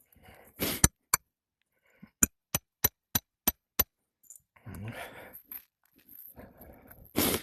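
Hammer driving roofing nails into a three-tab asphalt shingle: a couple of blows, then six quick, even strikes at about three a second, with another loud strike near the end.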